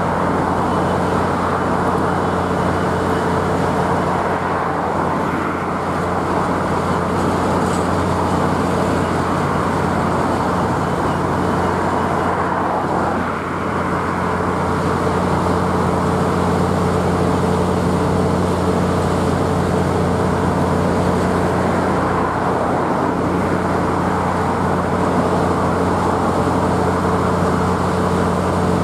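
Loaded steel freight wagons rolling past on the rails: a steady, unbroken rumble of wheels on track, with a constant low diesel engine drone underneath.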